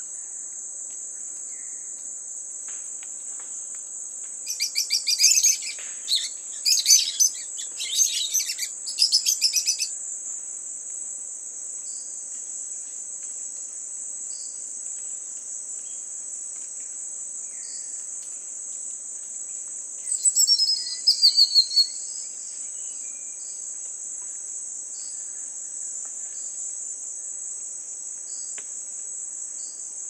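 A steady, high-pitched insect drone runs throughout. Over it, loud bursts of rapid, repeated bird calls come in several groups from about five to ten seconds in, and again about twenty seconds in.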